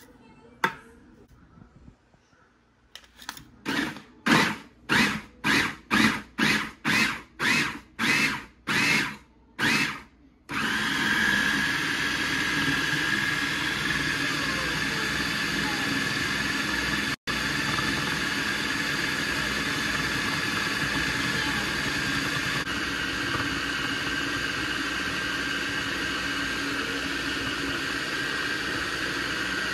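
Food processor pulsing about a dozen times in short bursts, then running continuously, chopping and pureeing frozen yogurt chunks.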